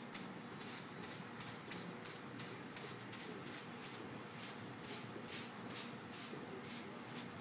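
Broom sweeping damp sand across the upturned bottle bottoms, in regular strokes about three a second.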